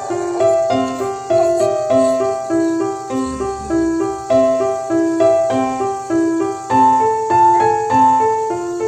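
Background piano music: a steady, repeating run of single notes about two a second.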